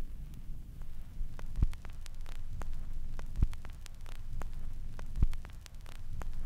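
A steady low hum with a single soft low thump about every two seconds, over faint scattered crackling clicks.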